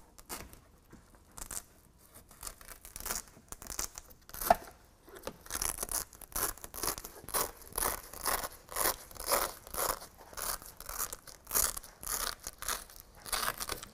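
Hook-and-loop (Velcro) strip being peeled off a soft-top bow: a run of short ripping tears, sparse at first and then coming quickly one after another in the second half, with a sharp click about four and a half seconds in.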